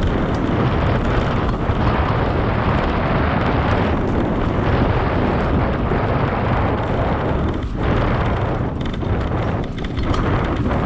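Wind buffeting and riding rumble on a bike-mounted camera's microphone as a mountain bike rolls along a dirt trail: a steady, loud noise that briefly dips twice near the end.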